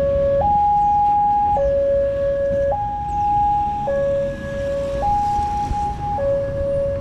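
Electronic warning alarm of a Wantech-type railroad level crossing, sounding a two-tone signal that alternates between a higher and a lower note about every second, then stops at the end as the boom barrier lifts after the train has passed.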